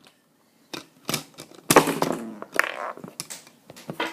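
A run of sharp clicks and clatters of small plastic B-daman marbles striking and scattering around a plastic target, the loudest and longest clatter a bit under two seconds in.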